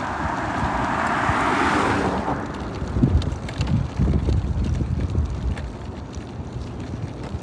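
Vehicle travel noise with wind on the microphone: a rushing hiss for about the first two seconds, then low rumbling with a few bumps, easing off near the end.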